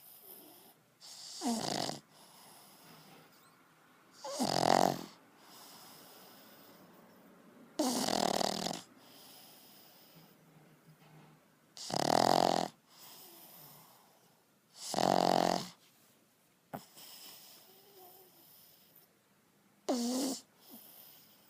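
Pug snoring: six loud snores, one every three to five seconds, with quieter breaths between them.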